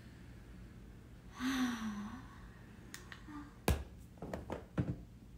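A woman sighs once, the sigh falling in pitch, then snaps her fingers several times in quick succession, the first snap the sharpest.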